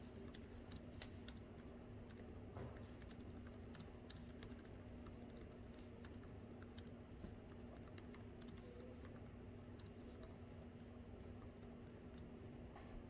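Soft typing on a laptop keyboard: faint, irregular key clicks over a steady low hum of room noise.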